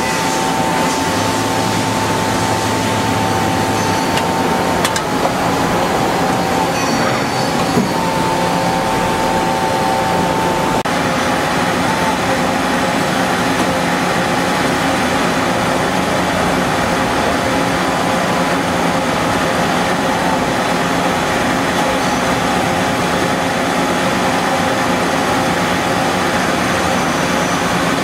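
Mazak 18MS Mark II CNC turning and milling center running a machining cycle: a steady mechanical hiss with a whine of a few held tones. About eleven seconds in, the highest tone drops out and the hiss grows slightly.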